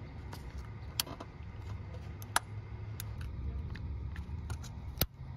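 Wiring-harness plugs being pushed onto the camshaft actuator solenoids of a 2014 Chevy Cruze: several sharp plastic clicks and handling knocks over a low steady hum, the loudest click about two and a half seconds in.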